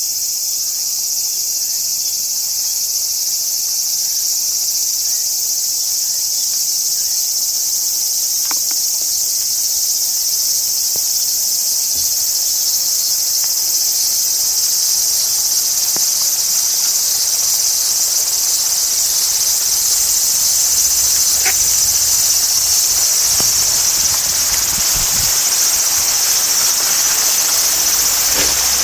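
A loud, steady, high-pitched buzzing drone from a chorus of insects. A few faint clicks fall along the way, and a soft rushing noise gradually builds in the second half.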